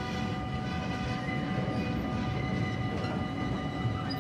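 Freight train wagons, box wagons and tank wagons, rolling past close by: a steady low rumble of wheels on rail, with steady high tones held over it.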